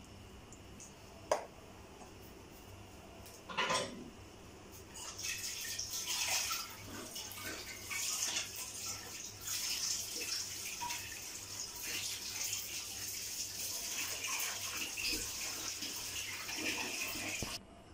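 Rice and vegetables in spiced water bubbling at a boil in an open pressure cooker. The crackling, bubbling hiss starts about five seconds in and cuts off just before the end. This is the rice cooking uncovered until the water reduces. Before it, a ladle knocks against the pot twice.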